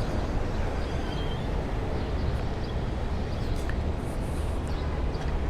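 Steady outdoor city street ambience: a low, even rumble of traffic and urban background noise, with no distinct events.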